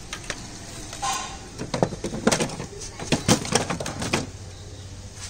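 A quick run of sharp plastic clicks and knocks, lasting about two and a half seconds from near the middle, as plastic parts of a Panasonic split AC indoor unit are handled and fitted together.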